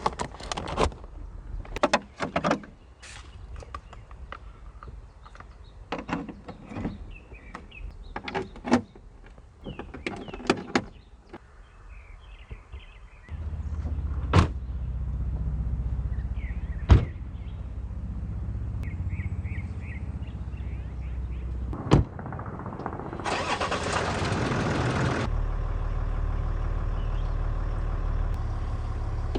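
Clatter and sharp knocks of gear being handled, then a car engine starts a little under halfway through and idles steadily. A few single sharp knocks sound over the idle, and a loud rushing noise lasts about two seconds near the end.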